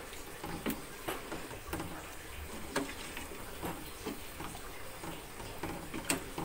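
Plastic ladle stirring soup in an aluminium pot, tapping and scraping against the pot in scattered light knocks.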